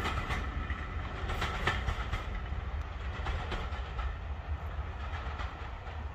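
Train carriages' wheels clicking over the rail joints as the train runs away, the clicks growing fainter and sparser as it recedes.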